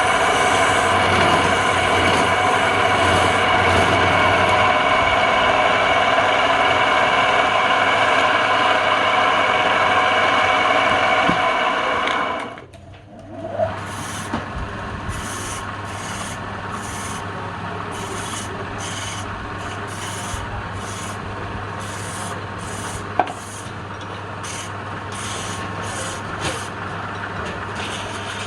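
Wood lathe running, with steady scraping and rubbing as the spinning wood is worked. About 13 s in, the sound drops out briefly and comes back quieter, with an even stroking rhythm.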